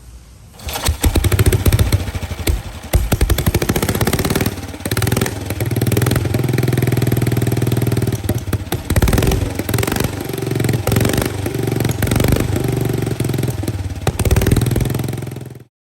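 Harley-Davidson Panhead V-twin motorcycle engine on a chopper, coming in about a second in with sharp revs, then running steadily with occasional blips of throttle, and cutting off suddenly near the end.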